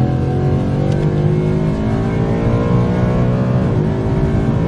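Ford Mustang GT's 5.0 V8 accelerating hard under full throttle, heard from inside the cabin; its pitch climbs steadily with a brief dip about four seconds in.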